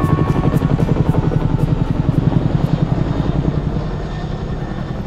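Chinook tandem-rotor helicopter flying overhead, its rotor blades beating in a fast, steady pulse that grows fainter in the last second or so as it moves away.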